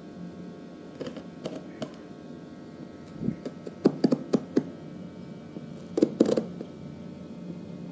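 Scattered knocks and taps of packaging and parts being handled, with a quick run of knocks a little before the middle and two more about six seconds in, over a faint steady hum.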